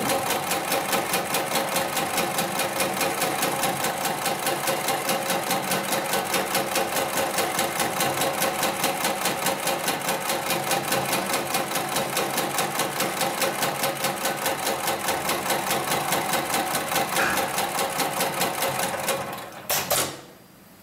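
Hightex 71008 heavy-duty programmable pattern sewing machine stitching through layered synthetic webbing sling, a fast, even stitch rhythm. Near the end the stitching stops with a short sharp burst, and the machine goes quiet.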